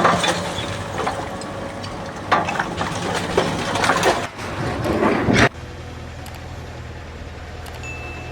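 An engine running steadily with clattering knocks over it. About five and a half seconds in it changes abruptly to a quieter, steady low engine hum.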